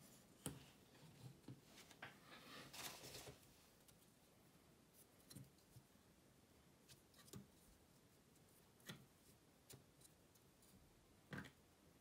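Faint, scattered clicks and taps of thin laser-cut plywood model parts being handled and pressed together, with a short scraping rustle about two and a half seconds in.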